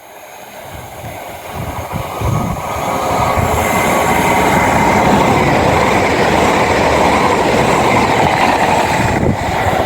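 East Midlands Railway intercity train passing through the station at speed without stopping. Its noise grows over the first three seconds as it approaches, then holds loud and steady as the carriages go by.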